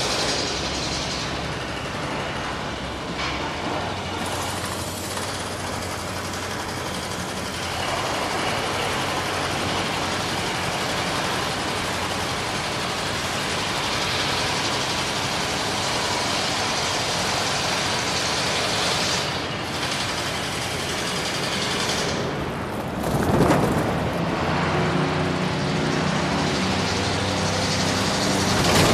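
Rivet hammer generator running: a dense, steady mechanical noise over a low engine hum, with a brief louder surge about 23 seconds in.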